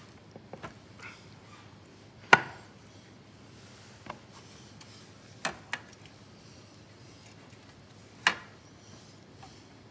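Scattered sharp knocks and taps of white kitchen trays and dishes on a countertop as a sardine is dipped in egg and laid in breadcrumbs; the two loudest come about two seconds in and near the end.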